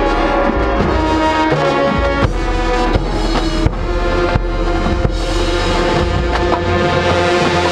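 Marching band brass section playing held chords over drums, with regular percussion hits.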